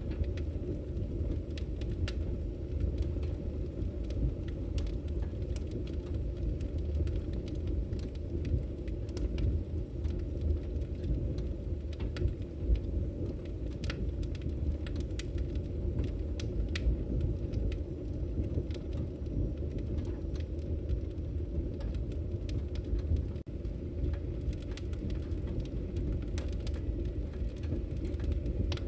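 Wood fire burning in a fireplace: a steady low rumble of flames with many scattered sharp crackles and pops.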